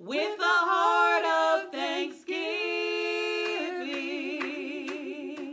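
Two women singing a worship song a cappella, with no instruments. They hold long, sustained notes, break off briefly about two seconds in, then hold another note with vibrato near the end.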